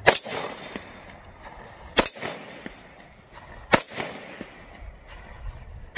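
Three single 9mm shots from a SIG Sauer P229 Legion single-action-only pistol, fired slowly about two seconds apart, each with a short echo trailing off.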